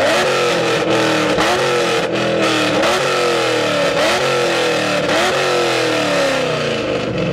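Car engine revved hard through a loud exhaust: five blips, each jumping up in pitch and falling away, a little over a second apart.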